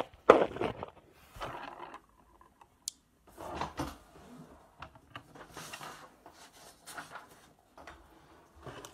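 Scattered bumps, clicks and rustles of things being handled and moved about in a small room, loudest just after the start, with no steady sound underneath.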